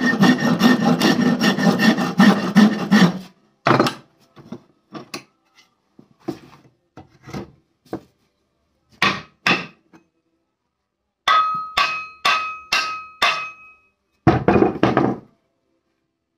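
A long flat file shaping a wooden axe handle held in a vise. It makes rapid back-and-forth rasping strokes of metal teeth on wood for about three seconds, then single strokes in short groups with pauses between. A few strokes near the end leave a thin metallic ring.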